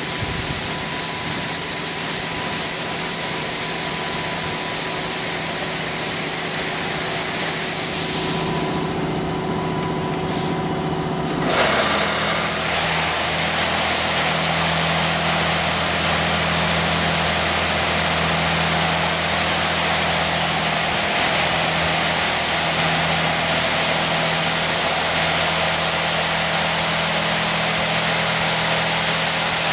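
Touchless automatic car wash machine running: a steady hiss of high-pressure water spray over a machine hum. The hiss thins about eight seconds in, then at about eleven and a half seconds the machine surges into a steady, deeper motor drone that has hiss on top.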